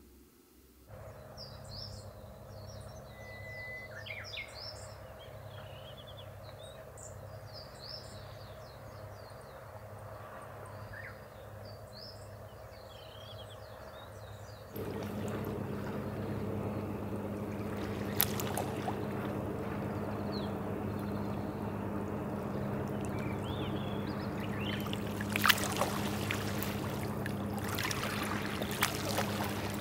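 Birds chirping over a steady low ambience. About halfway it gives way to louder small sea waves lapping and washing against a rocky shore, with a few sharper splashes near the end.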